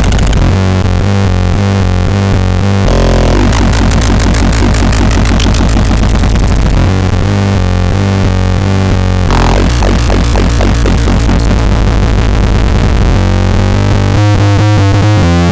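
Loud electronic music with a heavy, steady bass and synthesizer sounds, its patterns changing every few seconds.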